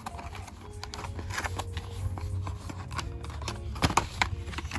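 Hands handling a cardboard charger box: scattered taps, scrapes and rustles against the card, with the sharpest knocks about three and four seconds in.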